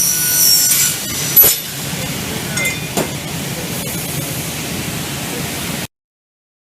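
Automatic double-head aluminium profile saw with its high blade whine dying away in the first second, then a sharp metallic clink, the loudest sound, and a lighter click about three seconds in, over a steady low machine hum. The sound cuts off suddenly near the end.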